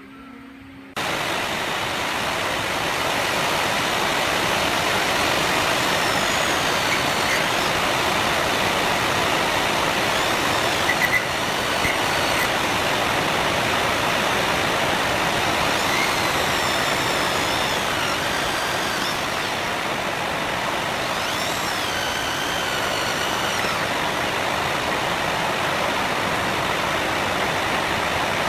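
A gouge cutting into wood spinning on a homemade wood lathe. A loud, steady cutting noise starts suddenly about a second in, with faint wavering high squeals.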